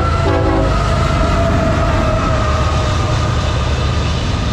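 CSX freight train passing close by: a horn blast cuts off about half a second in, then the diesel locomotives' low rumble and the rolling intermodal cars carry on, with a high whine that slowly falls in pitch over the next couple of seconds.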